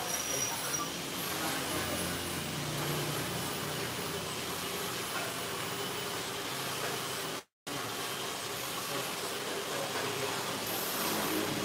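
Steady mechanical hum with a hiss over it, cutting out completely for a moment about seven and a half seconds in.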